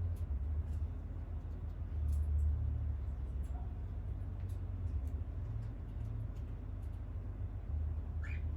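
Steady low rumble with scattered light clicks, and a short rising chirp from a blue Indian ringneck parakeet near the end.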